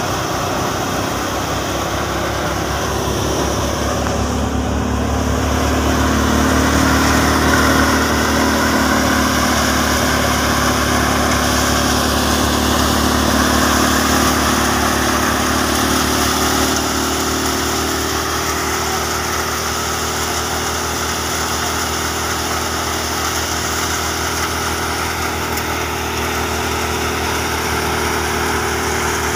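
Tractor-driven wheat thresher running steadily: the tractor engine's drone under the whirr of the thresher's drum, belts and blower. It gets a little louder for several seconds in the middle.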